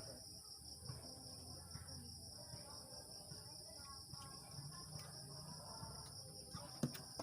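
Crickets trilling in a steady, continuous high tone, with faint voices underneath and a few sharp clicks near the end.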